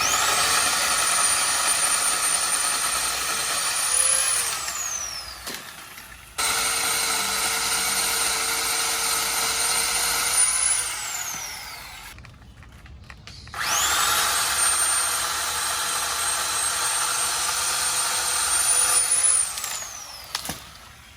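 Electric power saw cutting tree branches in three runs of about four to five seconds each. Its motor whines steadily under load, speeds up briefly at the end of each run as the blade cuts through, then winds down when released.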